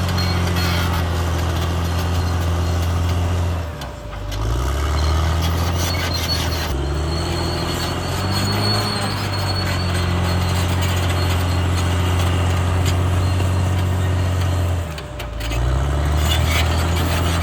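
Diesel engine of a CAT D6R XL bulldozer running steadily under load. About four seconds in and again near the end, the engine note briefly drops and then climbs back up.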